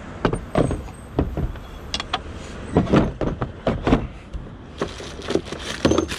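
Irregular clunks and knocks of a heavy metal hose swaging press being set down and pressed into its hard plastic carry case. Near the end a plastic bag of fittings crinkles.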